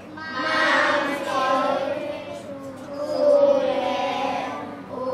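A class of young children reading a story passage aloud in unison, their voices blending into one drawn-out chorus.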